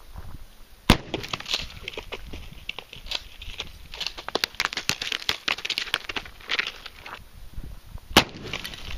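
Two blasts from a 12-gauge Mossberg 500 pump-action shotgun firing #4 buckshot, about seven seconds apart, with crackling, rustling noise in between.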